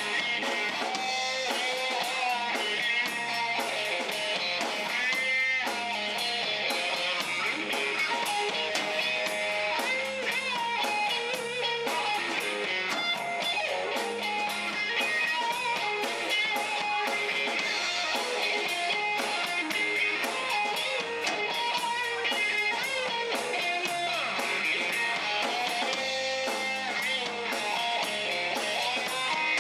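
Live rock band playing an instrumental passage: a Stratocaster-style electric guitar plays a lead line over a drum kit, with bent notes around five seconds in and wavering held notes a few seconds later.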